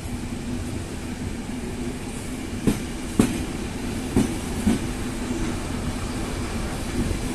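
Railway carriage wheels clicking over rail joints as a train rolls slowly, in two pairs of sharp clicks about half a second apart, over a steady low rumble and hum.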